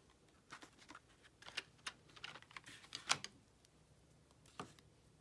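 Faint, scattered light clicks and taps of art supplies being handled on a tabletop: a cardboard box of markers and a rubber eraser lifted away from a sheet of paper. The clicks are irregular, with the sharpest about three seconds in and a last one about a second later.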